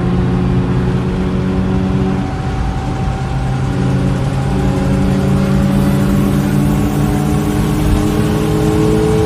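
BMW M42 1.8-litre four-cylinder engine, heard from inside the car and driven hard on track. The revs drop about two seconds in, then climb slowly and steadily as it accelerates.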